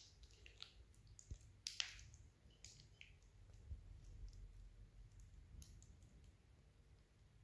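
Near silence with a handful of faint clicks and soft taps, the clearest about two seconds in: a glass bowl knocking lightly against a plastic mixing bowl as thick cream is tipped out of it.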